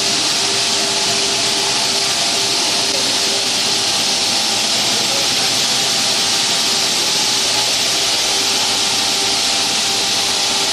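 Hydraulic diamond saw cutting concrete: a loud, steady hiss of the blade grinding through, with a faint steady machine hum under it.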